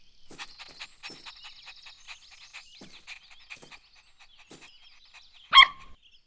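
Cartoon puppy giving a single short, loud bark about five and a half seconds in, over a background of small chirps and clicks of garden ambience.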